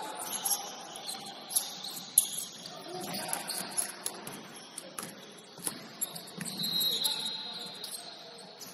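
Basketball game sounds in a gym: sneakers squeaking in short, high chirps on the court floor, the ball bouncing in a few sharp knocks, and a longer high squeal about seven seconds in, over distant voices in the hall.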